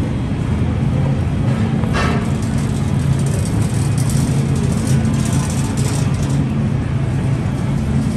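Steady low machine hum of a supermarket's refrigeration and ventilation, with a few brief rustles.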